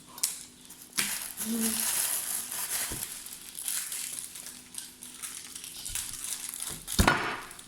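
Crunching and scraping of food ingredients being cut and handled by hand, with a few knocks, the loudest near the end.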